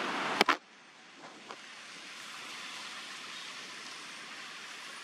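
Steady outdoor background hiss with no distinct source. A sharp double click comes about half a second in, after which the hiss is quieter.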